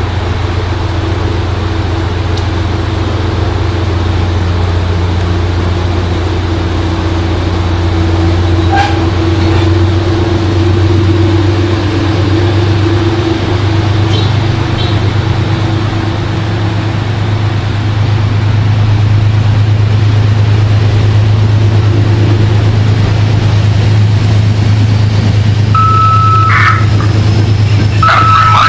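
Train running at the station, a steady low rumble that grows louder about two-thirds of the way through, with two short high tones near the end.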